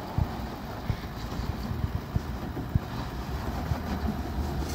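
Toyota LandCruiser 200 Series engine running at low speed as the 4WD works over a rutted, muddy track with one wheel dropped into a hole, with irregular low thumps throughout.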